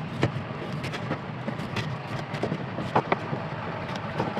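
A steady background hum with scattered light knocks and clicks, typical of a pineapple and kitchen tools being handled.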